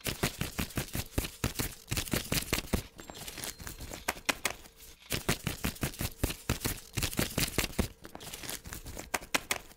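Dense, irregular crackling and clicking noise with a faint steady tone underneath, closing out a recorded track. It drops away briefly about halfway, then stops abruptly at the end.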